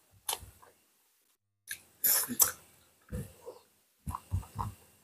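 Close-up eating sounds: chewing and mouth noises in short, irregular bursts, loudest about two seconds in.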